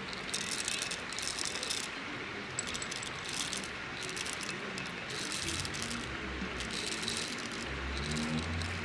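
Short bursts of small metallic clinking and rattling at uneven intervals, over a steady background hiss.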